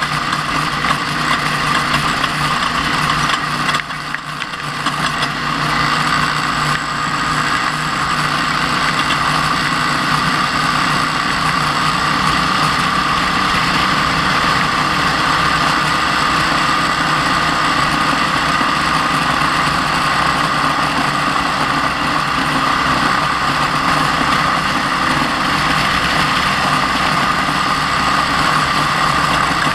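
Off-road race truck's engine running steadily, its tone holding nearly constant, with a brief dip in level about four seconds in.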